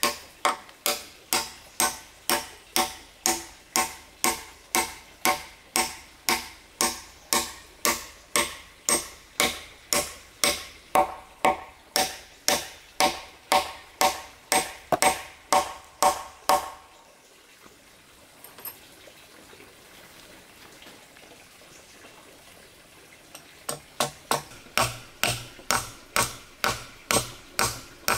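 Steel claw hammer driving a nail into a round wooden log beam, in steady blows about two to three a second. The blows stop for several seconds about two-thirds of the way through, then start again near the end.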